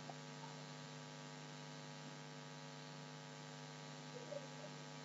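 Faint, steady electrical mains hum with a stack of buzzing tones over a light hiss, picked up by the recording chain.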